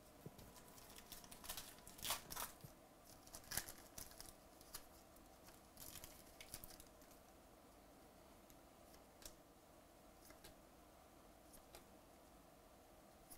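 Faint rustling, crinkling and clicking of trading cards and pack wrappers being handled. The clicks come thickly in the first half, then only a few scattered ticks.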